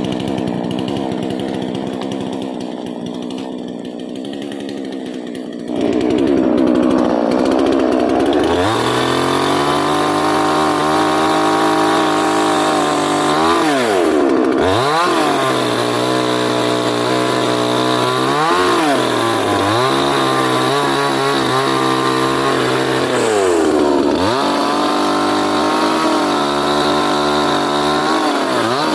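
Chainsaw cutting tree wood: the two-stroke engine runs at lower revs, then opens up to full throttle about six seconds in. The engine pitch dips and recovers four times.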